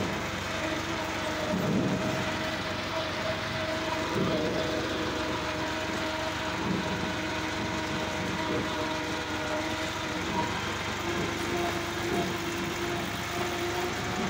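Tractor's diesel engine running steadily under way, heard from the driver's seat, a constant drone with a steady whine in it.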